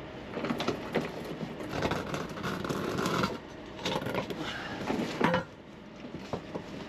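A Scania truck's propshaft being slid out from under the truck: metal scraping and clattering, with a sharp clank about five seconds in.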